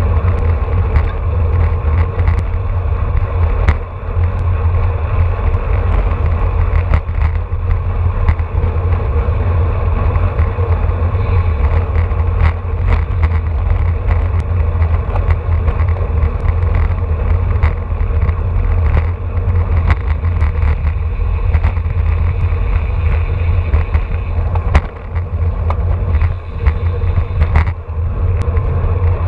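Wind buffeting the microphone of an action camera carried by a road cyclist riding in a racing pack at about 28 mph: a loud, steady low rumble with scattered sharp clicks and knocks from the bike and road. The rumble dips briefly a few times near the end as the speed drops.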